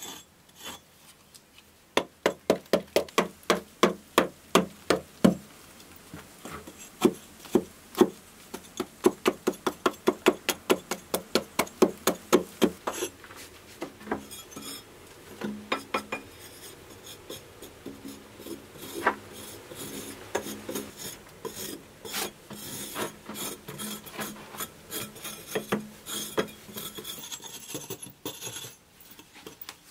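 A small hammer chipping into a soft stone wall, about three sharp strikes a second for roughly ten seconds with a brief pause. Then a flat metal scraper rasping over a stone surface, with scattered knocks.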